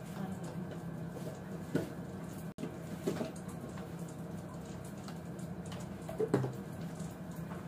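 Faint kitchen room tone: a low steady hum with a few soft clinks and knocks from work at the counter, the loudest a little past six seconds in.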